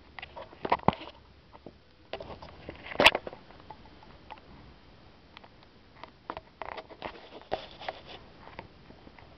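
Irregular scuffling, tapping and rustling close to the microphone, with one sharp knock about three seconds in.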